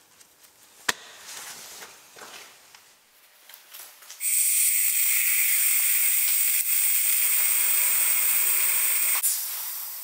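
A sharp click about a second in. From about four seconds a loud, steady hiss of pressurised air escaping, as the brake pressure bleeder's pressure is let out; after about five seconds it drops sharply and tails away.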